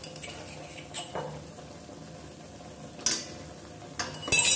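Steel ladle clinking and scraping against a stainless steel pan, with the loudest clatter near the end. Under it is a low, steady sizzle of ground onion paste frying in oil.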